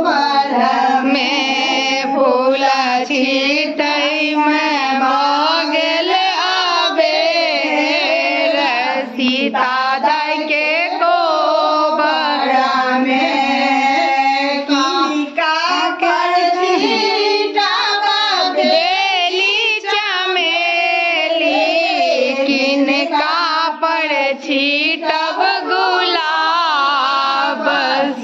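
A group of women singing a Maithili ritual folk song together, unaccompanied, several voices overlapping in a steady, continuous chant-like melody.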